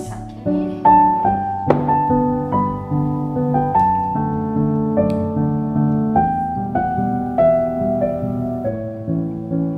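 Background music: a piano playing a melody over held chords, one note after another, each fading away.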